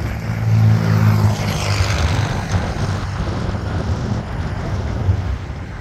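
A road vehicle passing by: a low engine hum with tyre hiss that swells about a second in, then slowly fades away.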